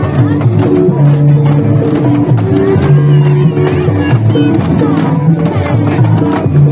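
Music with a repeating bass line of held notes and jingly percussion.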